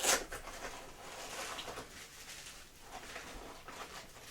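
A sharp knock right at the start, then faint rustling and light handling noise as small jib accessories are rummaged out of a carry bag.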